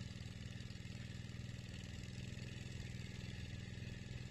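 A small engine idling steadily, with an even, low, pulsing hum.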